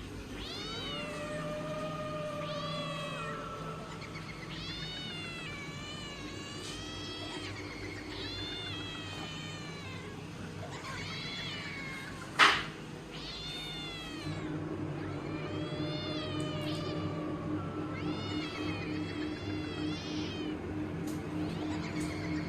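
Cat yowling and meowing over and over in long, wailing calls that rise and fall in pitch, against a low steady drone. A single sharp crack about twelve seconds in is the loudest sound.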